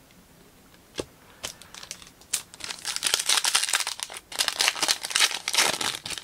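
Foil wrapper of a 2023 Panini Illusions football card pack being crinkled and torn open by hand: a few sharp crackles at first, then steady crinkling and tearing from about two and a half seconds in.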